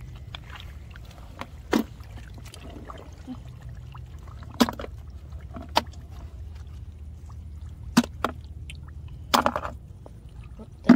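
Mud snail shells clacking as they are picked by hand out of shallow muddy water and dropped into a plastic bucket: half a dozen sharp knocks spread over several seconds, with small wet splashes, over a steady low rumble.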